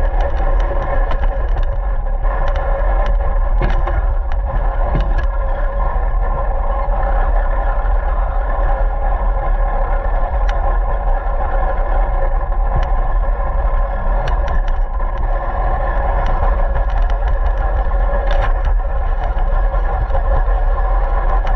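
Radio-controlled car driving: a steady motor whine over a loud rumble, with scattered clicks and knocks.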